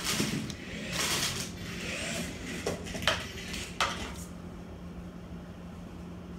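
Team Associated MT28 1/28-scale RC truck running on a wooden floor: bursts of motor and tyre noise in the first second and a half, then three sharp plastic clacks about three seconds in as it knocks about and comes to rest. After that only a steady low hum remains.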